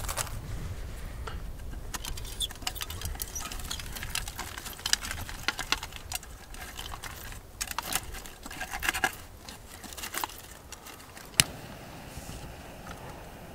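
Dry sage twigs being snapped and fed into a Firebox Nano folding twig stove: an irregular run of sharp clicks and snaps of wood against the stove, with one louder single snap near the end.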